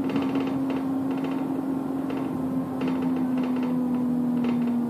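Inside a bus: a steady drivetrain whine over the engine's rumble, sliding slowly down in pitch as the bus slows for a roundabout. Irregular light rattling ticks come from the cabin.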